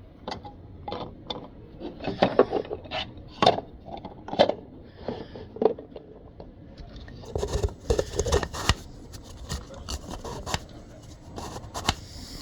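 Objects being handled: a string of irregular knocks, scrapes and rubbing noises, busiest about seven to nine seconds in.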